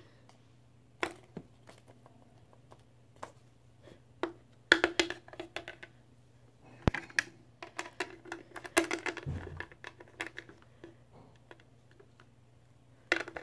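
Plastic toy figurines and accessories handled on a wooden floor: scattered light clicks and taps, busier in the middle stretch, over a faint steady hum.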